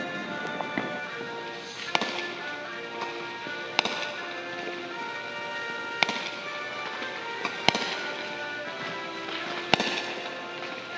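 Fireworks going off, five sharp bangs spaced about two seconds apart, over background music.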